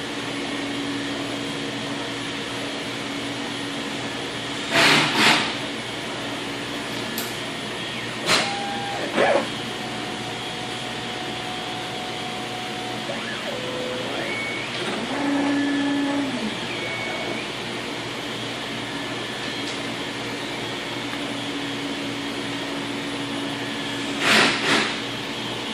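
ShopBot PRT Alpha CNC router running, a steady machine hiss with motor tones that start, stop and change pitch as the axes move. Two pairs of short, loud rushing bursts sound, one about 5 s in and one near the end.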